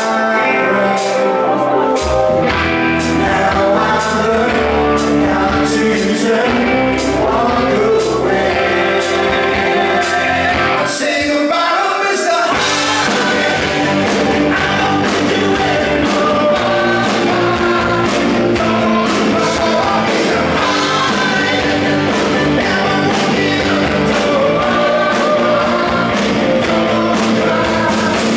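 Live rock band playing: a male lead vocal over bass guitar, electric guitars and drums with a steady beat. The bass drops out briefly about eleven seconds in, then the full band comes back in.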